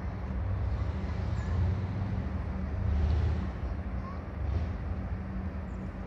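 Low rumble and steady hum of the ferries' engines across the river, surging in gusts with wind on the microphone.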